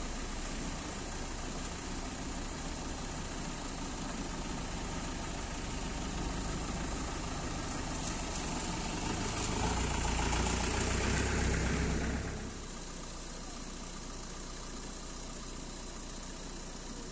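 A Mahindra jeep's engine running up close as the jeep comes slowly along the road. It gets louder and deeper for a few seconds, then drops off suddenly about twelve seconds in to a steady, quieter outdoor hiss.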